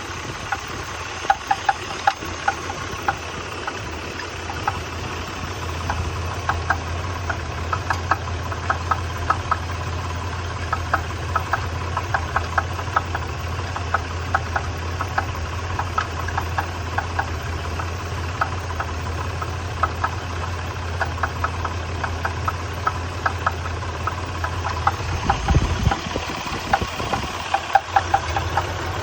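A 1993 Nissan Pathfinder's engine idling with a rapid, rhythmic knock over its steady hum; the owner takes it for engine knock.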